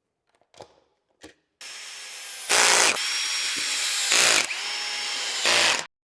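A handheld power tool whirring with a steady whine, surging louder three times in short pulls, then stopping abruptly. A few faint clicks come before it starts.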